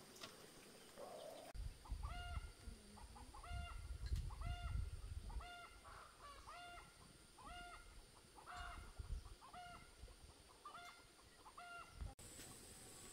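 Domestic fowl calling: a dozen or so short, pitched, honking calls repeating about once or twice a second. A low rumble runs underneath in the first few seconds.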